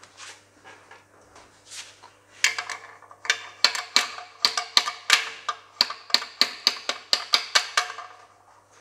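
A quick run of light metal-on-metal taps, about three or four a second, each ringing briefly. It is a steel rod knocking against the gearbox's front bearing support and cover plate while they are being lined up. A few fainter knocks come before it.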